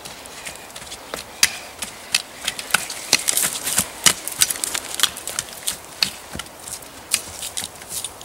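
Footsteps and walking-pole plants crunching through dry leaves, grass and twigs: a quick run of irregular crackles and snaps, busiest in the middle.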